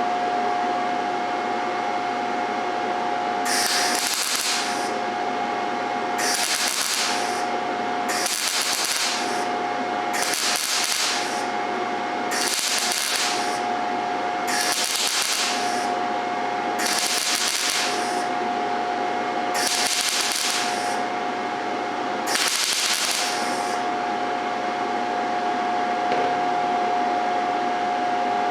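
Gas-shielded MIG welder striking a series of tack welds: about nine short bursts of arc crackle, each under a second, roughly two seconds apart. A steady hum with a constant tone runs underneath.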